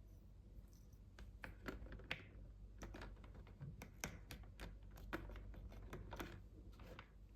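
Small plastic toy pieces being handled and set down: a run of light, irregular clicks and taps, faint.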